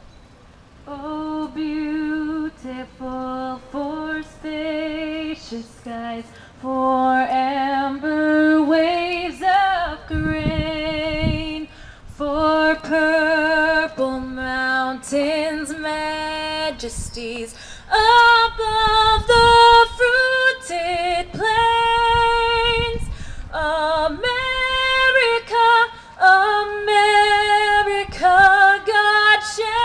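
A woman singing solo and unaccompanied into a microphone over a PA speaker. She holds long notes with vibrato and starts about a second in.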